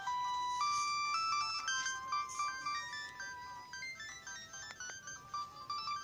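LG GB102 mobile phone playing a ringtone through its small loudspeaker: a quick melody of short, clear electronic notes.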